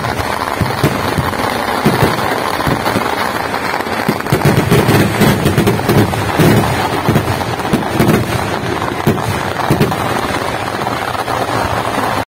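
Aerial fireworks bursting overhead in a continuous rapid barrage of bangs and crackling, thickest in the middle stretch.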